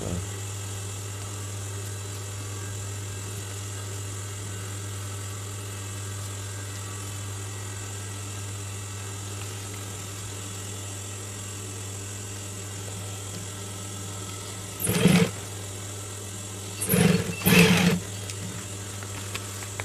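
Industrial sewing machine's electric motor humming steadily at idle. About fifteen seconds in come three short, loud bursts of the machine running and stitching, the last two close together.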